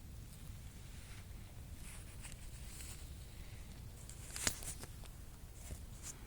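Faint rustles and small clicks over a low steady rumble, with one sharper click about four and a half seconds in.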